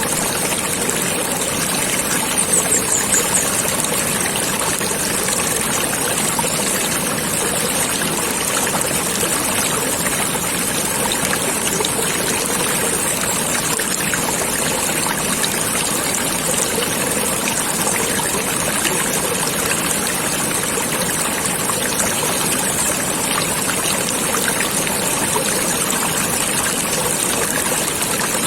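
Flowing stream water trickling and babbling steadily, with a brief high chirping about two and a half seconds in.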